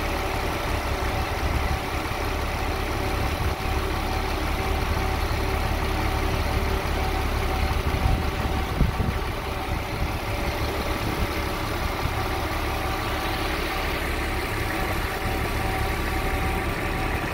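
Diesel engine of a 1999 Kenworth single-axle grain truck idling steadily while the hydraulic hoist lowers the grain box.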